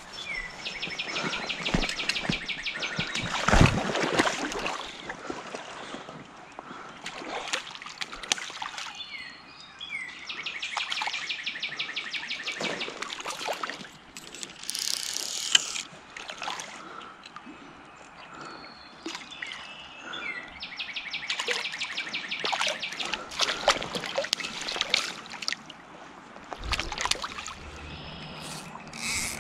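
A songbird sings the same rapid trilled song three times, about ten seconds apart. Water splashes and knocks from handling a trout at the water's edge sound between the songs, the loudest near the start.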